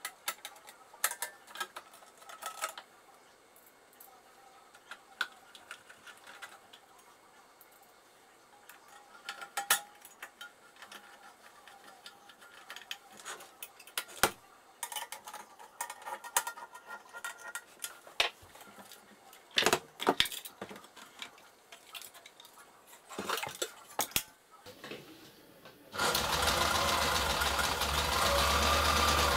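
Kenmore Ultra Stitch 12 sewing machine being handled, with scattered clicks and knocks, then near the end its motor starts and runs steadily for about three seconds before stopping: a test run after its motor and lug belts were replaced.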